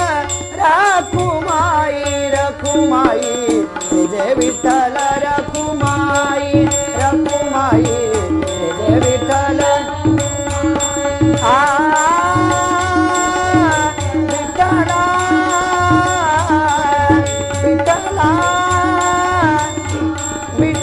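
Marathi devotional bhajan (Vitthal abhang): a male lead voice and women's voices singing to harmonium, with tabla and small hand cymbals (taal) keeping a steady beat. The singing moves freely early on, then settles into long held notes from about halfway.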